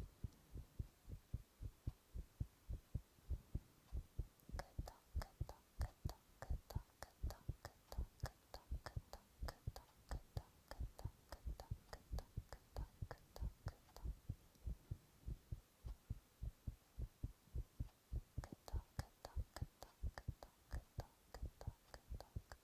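A human heartbeat picked up by a microphone held to the chest: a steady, regular lub-dub of low thuds.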